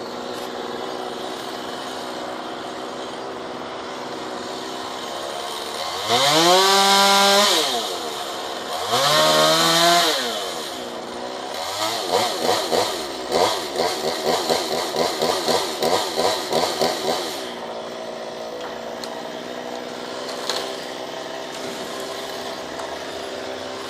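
Chainsaw engine idling, revved up sharply twice, then held at high speed with a rapid pulsing for about five seconds before dropping back to idle.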